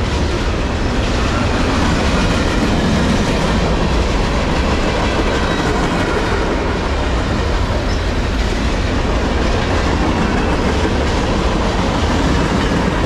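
Mixed freight cars of a manifest train (hoppers, tank cars, boxcar and flatcars) rolling past: a steady, loud rumble and clatter of steel wheels on the rail.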